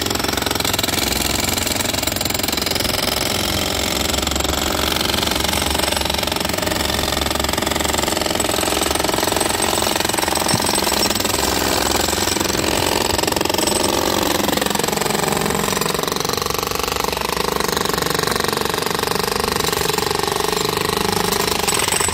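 Several jackhammers hammering at once, chiselling into a concrete slab: a loud, continuous rattle of overlapping blows with no pauses.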